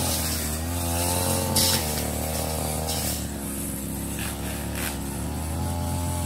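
Ogawa CC33 two-stroke brush cutter running at high revs with a metal blade, cutting overgrown lemongrass. The engine pitch sags under load and picks up again, and the blade gives a few sharp hits as it strikes stalks.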